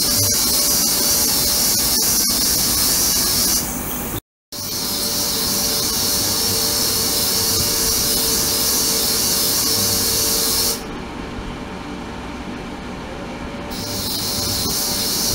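Ultrasonic cleaning tank running: a loud, high-pitched hiss from the agitated water. It cuts out for a moment about 4 s in, drops away to a lower steady hum about 11 s in, and comes back near the end.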